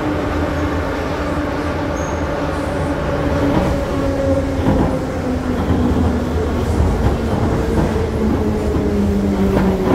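Moscow metro train braking as it pulls into a station: a whine that falls slowly in pitch over the low rumble of the wheels.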